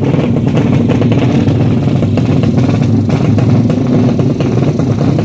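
Drag bike's engine running loudly and steadily at the start line.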